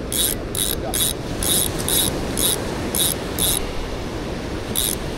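Fishing reel being cranked, giving short high ticks about two a second, with a break of about a second before a last one near the end, over a steady rush of surf and wind.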